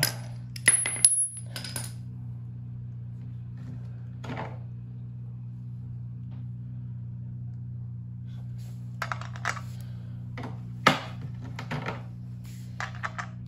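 Scattered metallic clinks and taps of a wrench against a push reel mower's axle nut and frame. One clink about a second in rings briefly, and there is a quick run of clicks and a sharp knock later on. A steady low hum lies underneath.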